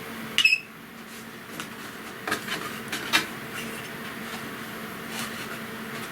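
Faint, irregular clicks and taps of hard plastic pieces being handled, over a steady low hum. A short, sharp high squeak about half a second in.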